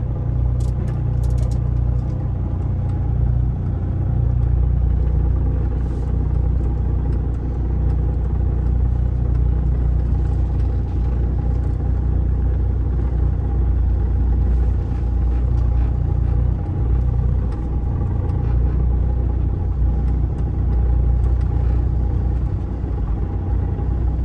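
Semi truck's diesel engine and drivetrain running at low road speed, heard from inside the cab as a steady low rumble with a steady hum above it. A few light clicks sound about a second in.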